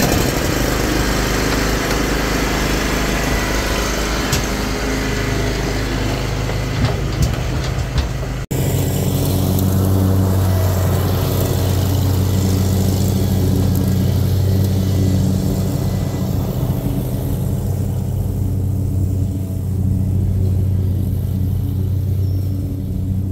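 Lawn mower engine running steadily. A little over 8 s in, the sound changes abruptly to a stronger, steadier low hum.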